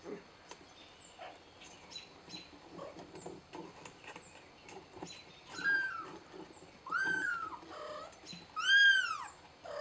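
Kitten mewing: thin, faint high squeaks in the first half, then three louder rising-and-falling mews, the loudest near the end.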